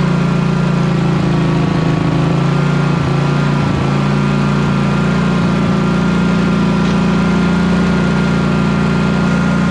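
Engine of a Scag V-Ride stand-on mower running steadily, with a steady high whine over the low engine hum, as the mower drives up onto a trailer.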